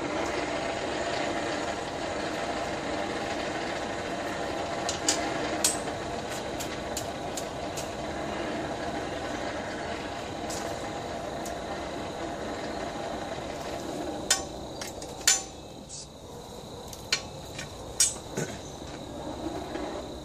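Hand-cranked Champion 400 forge blower whirring steadily as it is cranked, forcing air into the coal fire, then winding down about two-thirds of the way through. A few sharp clicks and taps come, mostly near the end.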